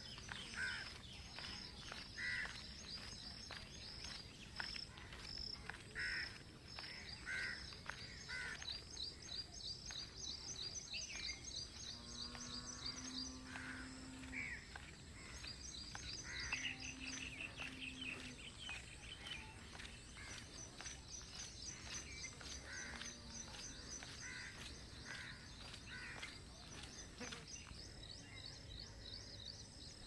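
Several birds calling in the open: quick repeated high chirps and trills with shorter calls between them, over a low steady rumble of outdoor air. A few low steady notes sound around the middle.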